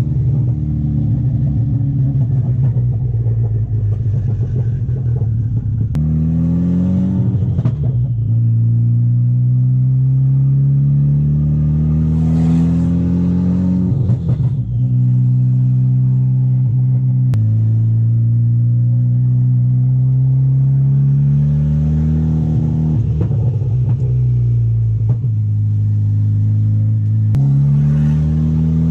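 Turbocharged VW MK6 Golf R four-cylinder engine accelerating through the gears, its cam timing chain, adjuster and tensioner newly replaced. The pitch climbs under load, drops sharply at each gear change and climbs again, several times over.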